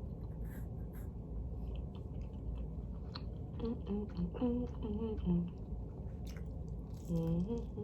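A person chewing pizza close to the microphone, with wet mouth clicks and smacks, broken by a few short voiced murmurs through the middle and near the end.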